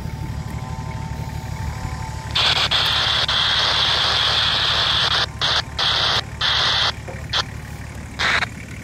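An off-road vehicle's engine running steadily. Over it, a loud hiss comes in about two seconds in and holds for about three seconds, then cuts in and out in several short bursts.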